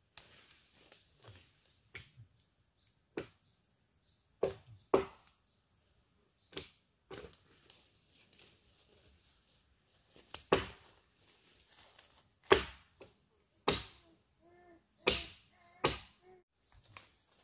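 A series of sharp chopping knocks at irregular intervals, one to two seconds apart, loudest in a run near the end.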